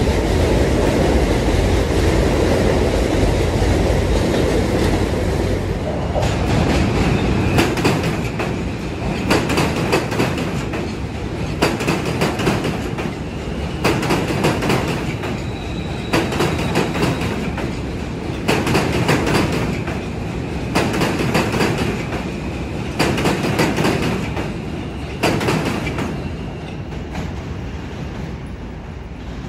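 New York City subway train passing close on steel track. It starts with a heavy rumble, then turns into a clickety-clack of wheels over rail joints, the clicks coming in quick pairs every second or two over a steady high whine. The sound eases off near the end as the train draws away.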